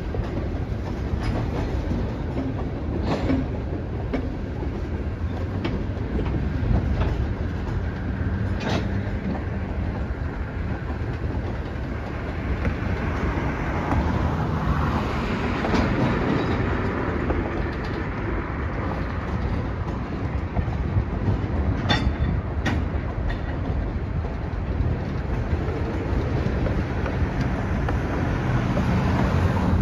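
Freight cars of a Wheeling & Lake Erie train rolling past: a steady rumble of wheels on rail, with scattered sharp clicks and clanks from the wheels and couplers.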